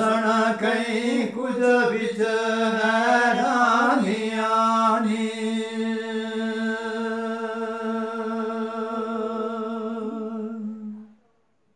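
A man's voice singing a Gojri bait verse unaccompanied, ornamented and wavering for the first few seconds. He then holds one long steady note for about six seconds, which stops near the end.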